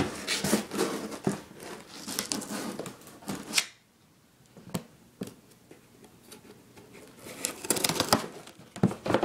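A boot knife slicing through packing tape and cardboard on a shipping box, a run of scraping cuts for the first three and a half seconds. After a pause with a couple of clicks, the cardboard flaps are pulled open with a rustle near the end.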